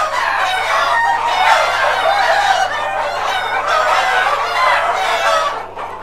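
A large flock of Black Australorp chickens clucking and calling over one another in a crowded shed, the calls dipping a little in loudness near the end.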